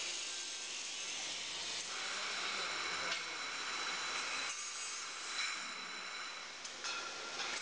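Retort crate loading machine running while it conveys empty glass jars: a steady hiss with thin high whining tones, broken by a few brief clicks.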